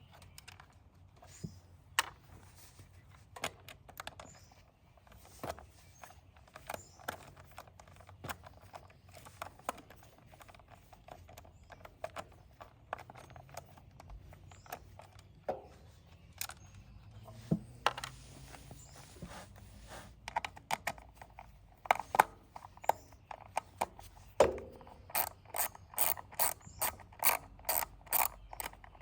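Hand tools working on a generator's carburetor mounting: scattered metallic clicks and knocks, turning near the end into the even clicking of a ratchet wrench at about three clicks a second.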